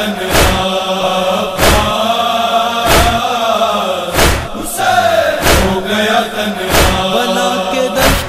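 Men's voices chanting a Muharram noha (lament) in long, drawn-out wavering notes. A loud, regular thud cuts through the chant about every 1.3 seconds.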